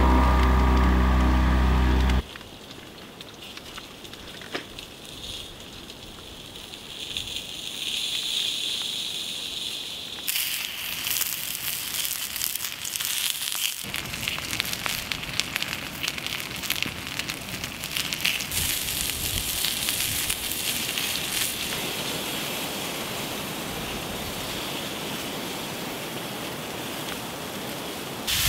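Wood fire crackling and popping in a Firebox steel camp stove, densest from about ten seconds in. Before that, a steady engine hum cuts off suddenly about two seconds in.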